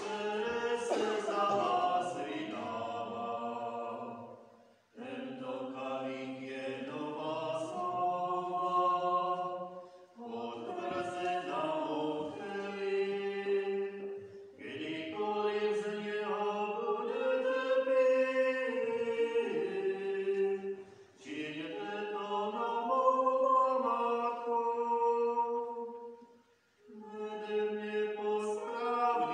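A liturgical hymn sung to organ accompaniment, in phrases of a few seconds with short breaks between them.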